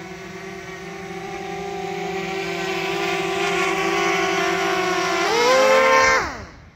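Quadcopter drone's propellers whining with a steady pitch and growing louder as the drone comes in close. About five seconds in the pitch jumps up briefly, then the motors wind down and stop, as on landing.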